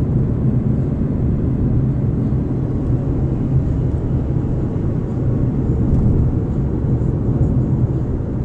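Steady low rumble of road and wind noise inside a moving car's cabin as it drives along a winding road.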